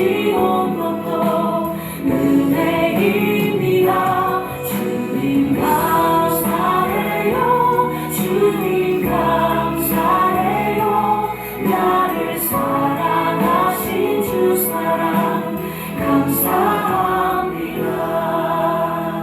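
Congregational worship singing: voices, women's voices prominent, singing a Christian hymn or praise song over instrumental accompaniment, fading out near the end.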